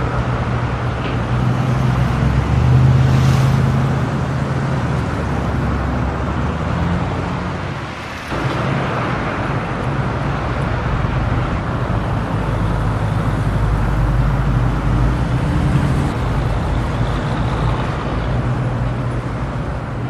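Street traffic: car engines running with a steady low hum under continuous road noise. It swells about three seconds in and dips briefly near eight seconds.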